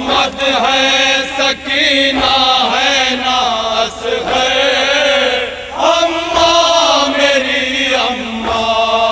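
Men's voices chanting a noha, a Shia mourning lament, in sustained sung lines over a loudspeaker, with a short break between lines. A few sharp slaps of hands striking chests (matam) mark the chant.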